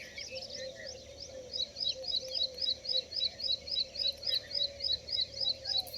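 Small birds chirping, with one calling a quick high note over and over, about four times a second, that starts about one and a half seconds in and becomes the loudest sound. Other softer chirps and a low wavering call continue underneath.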